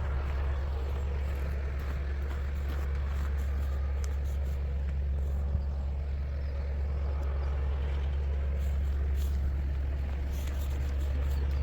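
Tractor engine running steadily, a low, even rumble with no change in pitch.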